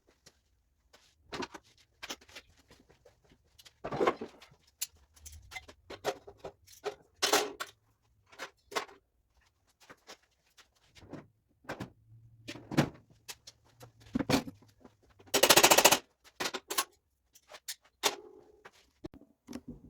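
Irregular metal clanks and knocks as tools and sheet-metal parts are handled, with a dense rattling clatter of about half a second some fifteen seconds in.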